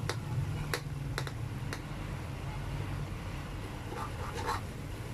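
Metal spoon clicking and scraping against an aluminium wok while stirring chicken livers and gizzards in simmering adobo sauce: a handful of sharp clicks in the first two seconds, a few softer scrapes later, over a steady low hum.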